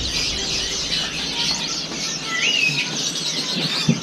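Many caged songbirds chirping and twittering together in a dense chorus, with one clear whistled note that rises and falls about two and a half seconds in.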